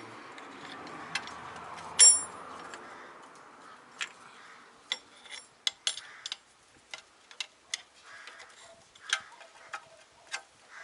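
Metal-on-metal clicks and taps from working the seized parking-brake actuator lever of a Mercedes W221 rear drum brake. There is one loud ringing clink about two seconds in, then a run of irregular light clicks, with a soft hiss that fades after about three seconds.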